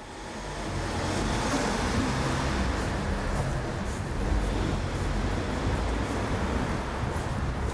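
Steady low rumbling noise that swells in over the first second and then holds.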